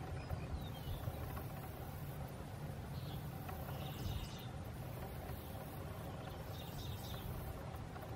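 Outdoor ambience: a steady low rumble with a few faint, high chirps, one a short falling whistle about half a second in.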